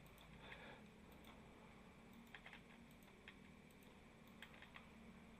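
Faint, scattered clicks of a computer keyboard and mouse over near-silent room tone.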